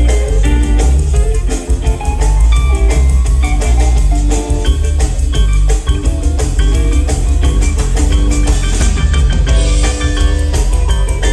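Live rock band playing full-on, with keyboards, guitar, bass and drums, recorded from the crowd with a heavy, booming low end.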